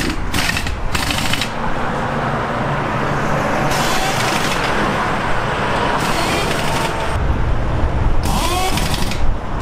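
Steady outdoor road-traffic noise with a low engine rumble, swelling with hiss a few times as vehicles pass.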